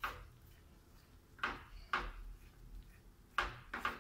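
A silicone spatula stirring thick gravy in a non-stick pan, scraping against the pan in about five short strokes.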